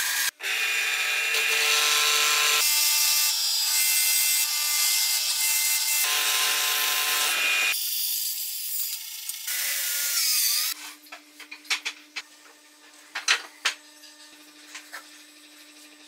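Bandsaw cutting through a wooden board: a steady running whine and hiss of the blade in the wood, broken into several short takes with abrupt cuts. About ten seconds in the sawing stops. What follows is quieter: light wooden knocks and clicks as pieces are handled, over a low steady hum.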